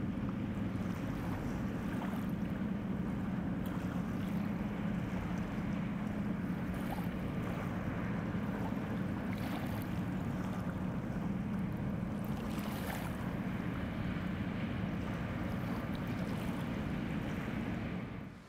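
Inland tanker ship's diesel engine running with a steady low hum as it pushes upstream against the current, over a wash of water and wind noise.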